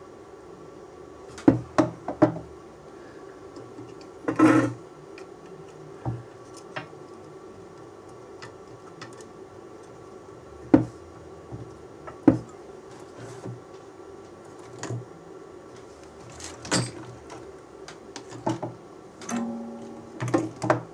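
Scattered small clicks and knocks of hands and tools handling a USB connector and helping-hands clamp over a circuit board, over a steady low hum, with a short low buzz near the end.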